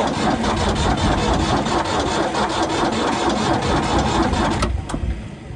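Ford 4000 tractor's three-cylinder diesel engine running with a rapid, even clatter, dropping away sharply near the end.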